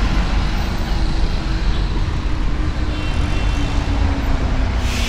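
Busy city street traffic, with buses and cars passing and a steady engine rumble. One vehicle's engine tone slowly drops in pitch as it goes by.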